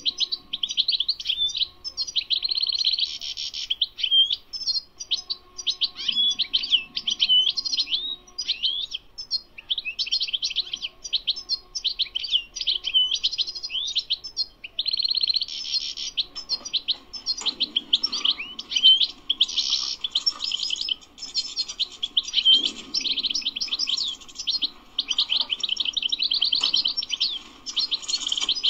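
European goldfinch singing: a long run of rapid twittering notes and trills with brief gaps between phrases. This is the 'tabtaba' song that goldfinch keepers prize.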